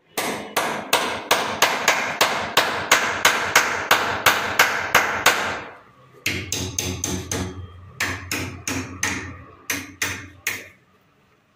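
Steady run of hammer blows on a wooden door frame, about three a second, then a short pause and a second, more uneven run of blows that stops near the end.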